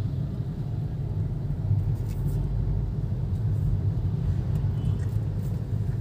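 Steady low rumble inside the cabin of a Hyundai Grand i10 Nios as it drives along a town street, engine and road noise together.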